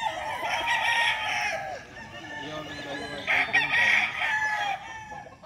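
Gamecocks crowing: two long crows, the first in the opening second or two and the second beginning about three seconds in.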